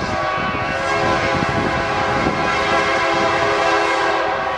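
Diesel freight locomotive's horn sounding one long steady blast, a chord of several tones, that cuts off near the end.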